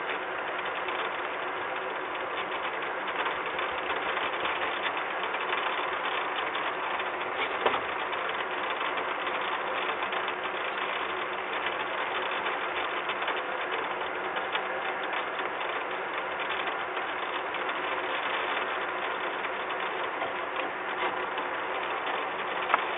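Steady mechanical drone with a constant low hum, the running machinery of the power plant, broken by two sharp knocks, about eight seconds in and near the end, as a young peregrine falcon flaps on the metal railing.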